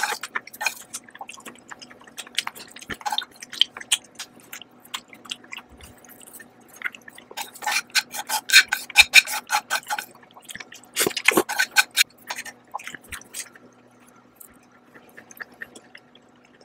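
Close-up eating sounds: noodles slurped and chewed with many wet mouth clicks, and chopsticks picking at a frying pan. The sounds come thickest about halfway through and again around two-thirds in, then thin out near the end.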